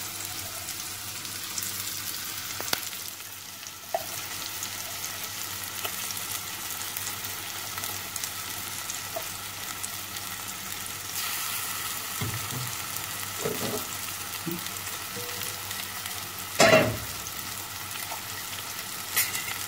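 Onions, curry leaves and tomato frying in oil in a cooking pot, with ground roasted-coconut paste just added on top: a steady sizzle, broken by a few short knocks, the loudest about 17 seconds in.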